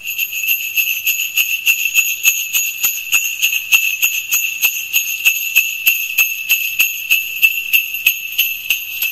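Jingle bells shaken in a steady rhythm, about three shakes a second, with a bright high ring.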